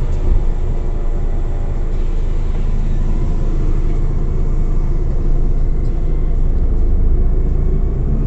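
Steady low rumble of engine and road noise inside a Scania OmniCity CNG city bus on the move, with a faint engine tone fading out about halfway through.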